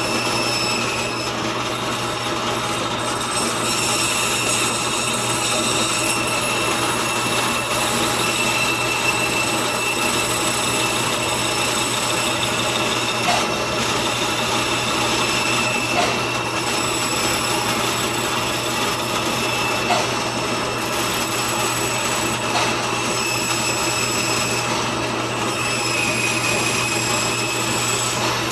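Band saw running steadily with a constant motor hum and a high blade whine, its blade cutting walnut, with a few light ticks along the way.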